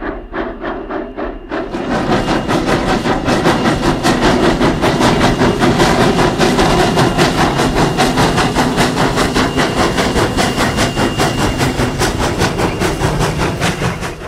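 Virginia & Truckee No. 29, a 2-8-0 steam locomotive, working hard as it pulls a freight train: a fast, steady beat of exhaust chuffs. About two seconds in, the beat gets louder and fuller.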